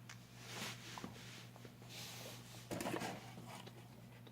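Faint rustling and light tapping, with a few soft scrapes, over a steady low hum.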